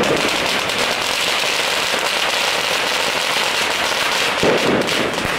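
Firecrackers going off in a rapid, continuous crackle, a dense stream of small bangs, with a stronger burst about four and a half seconds in.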